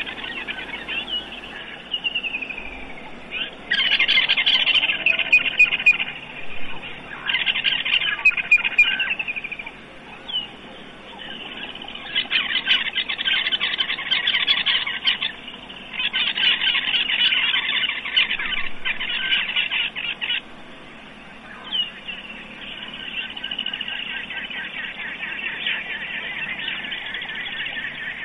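Woodland kingfisher calling: a rapid trill lasting two to four seconds, repeated about five times.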